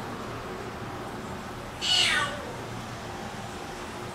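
Domestic cat meowing once, a short call that falls in pitch, about two seconds in.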